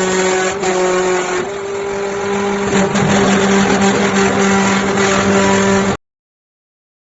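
Hydraulic metal baler's power unit running under load, a steady hum and whine with a noisy wash over it; the tones shift a little now and then. The sound cuts off abruptly about six seconds in.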